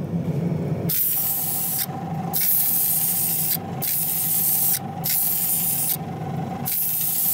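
Small gravity-feed paint spray gun hissing in five short bursts, each about a second long with brief pauses between, as the trigger is pulled and released. A steady low hum runs beneath.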